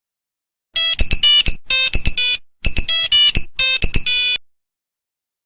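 Nokia mobile phone ringtone: a quick run of buzzy electronic beeping notes, a short phrase played twice with a brief break between, ending abruptly.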